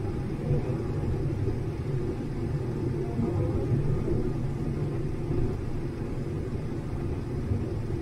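Combine harvester running steadily while cutting corn, heard from inside the cab as a continuous low rumble of engine and threshing machinery.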